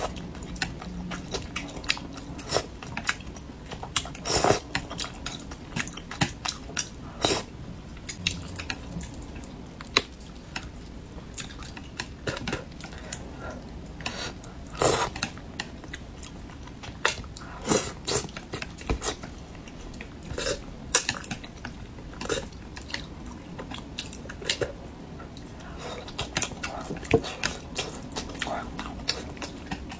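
A person chewing and eating spicy braised fish with sharp, irregular wet mouth clicks and smacks, heard close up.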